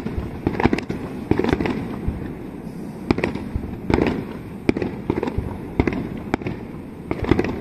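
Aerial firework shells bursting one after another: a steady run of sharp bangs, often several close together, with echoes smearing after them.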